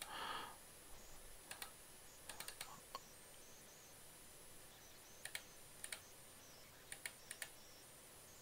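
Faint, scattered computer mouse clicks, some in quick pairs or groups of three, with a few seconds' gaps between them.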